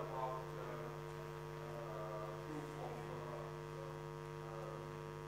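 Steady electrical mains hum from the sound system, with a faint voice now and then.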